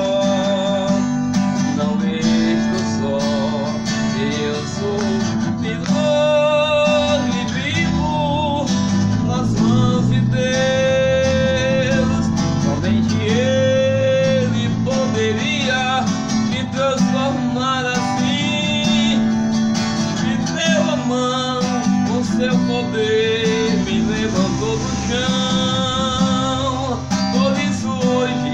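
A man singing a slow song in Portuguese with his own acoustic guitar accompaniment, the voice wavering on long held notes over steady guitar chords.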